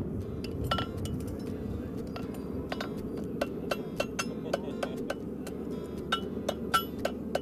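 Farrier's hammer striking a hot steel heartbar horseshoe on the anvil to shape it: a dozen or so sharp, ringing metallic blows at uneven spacing, coming more often in the second half.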